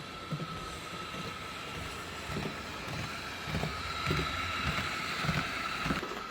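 Piko HO-scale Class 442 electric multiple unit model running along the layout track: a steady whine with irregular low clicks from the wheels on the rails, getting a little louder in the second half.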